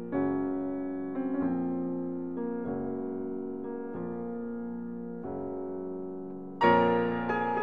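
Piano music: slow, held chords that change about once a second, growing louder and brighter near the end.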